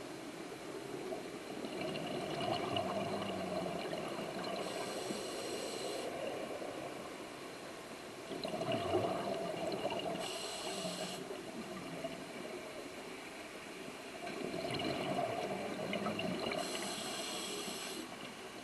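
Scuba diver breathing through a regulator underwater, three breaths about six seconds apart: each exhalation is a bubbling gurgle of exhaust bubbles, followed by a short hiss of the regulator on the inhalation.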